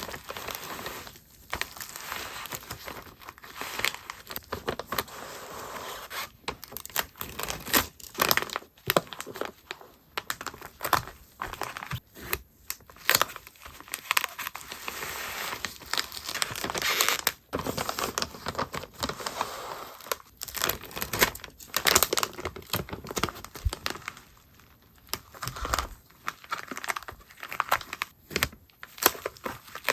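Plastic packaging crinkling and rustling, with tearing and sharp clicks, as acrylic goods are wrapped and packed by hand.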